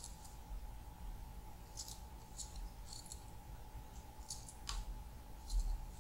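Small kitchen knife cutting tomato held between the fingers: faint, short, clicking snips, about seven of them, unevenly spaced.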